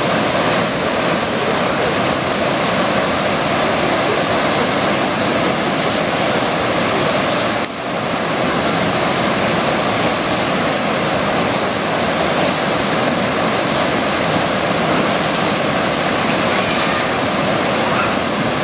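Loud, steady rushing of whitewater pouring over a river's standing surf wave, with a brief dip about eight seconds in.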